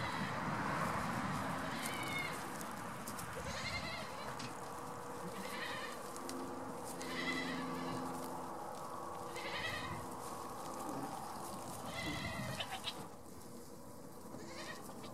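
Goats bleating in a herd, with short high calls recurring about every two seconds.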